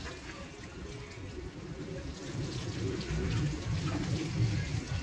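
Water from a garden hose spraying and splashing onto a motorcycle as it is washed, a little louder from about three seconds in.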